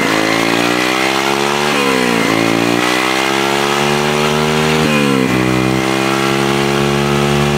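Motorcycle engine accelerating under way. Its pitch climbs steadily and drops back sharply at each gear change, a few times.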